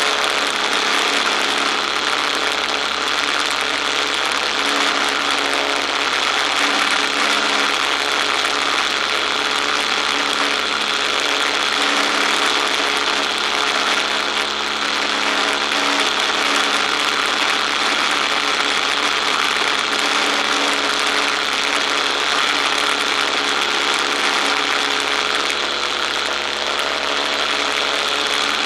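Boeing-Stearman Model 75 biplane's radial engine and propeller running steadily in flight, under a heavy rush of wind over the wing-mounted camera.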